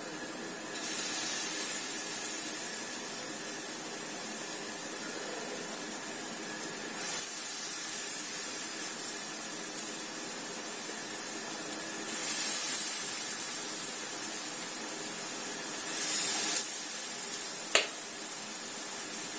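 Zucchini fritters frying in hot oil: a steady sizzle that flares louder four times, about a second in and again near 7, 12 and 16 seconds, as spoonfuls of batter go into the pan. A single short click near the end.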